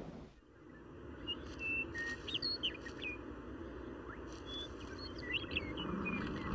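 Birds chirping in many short, varied calls and quick whistled notes, over a soft, steady background rush of outdoor ambience.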